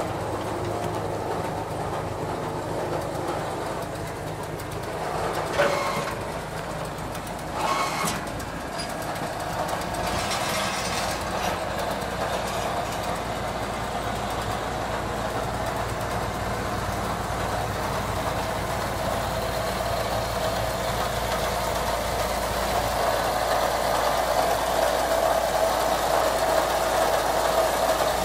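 Engine running steadily while the New Holland 1037 bale wagon's hydraulic load rack is worked, with two metal clanks about five and eight seconds in and a steady whine growing louder near the end.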